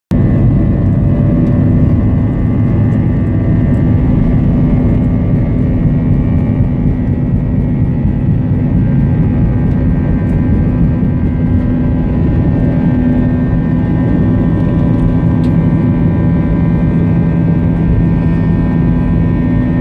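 Airliner's engines at takeoff power, heard from inside the cabin during the takeoff run and climb-out: a loud, steady rumble with a drone of several steady tones over it.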